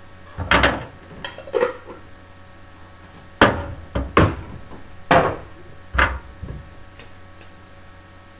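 Around eight sharp knocks and clicks at uneven intervals, like small hard objects being handled and tapped, over the steady hum of the laptop's fans.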